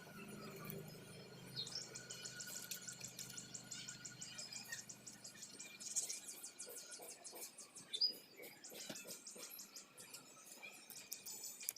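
Faint, rapid high-pitched chirping trills in three runs of a few seconds each, with two short single chirps between them.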